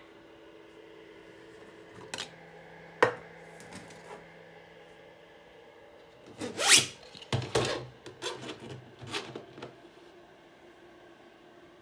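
Handling noises: a couple of sharp knocks, then a louder scrape and rustle about halfway through followed by a run of lighter knocks, over a faint steady hum.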